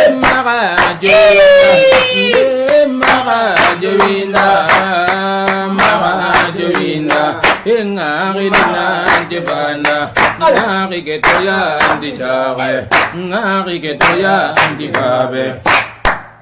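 Voices singing a chant in Soninke to steady hand clapping.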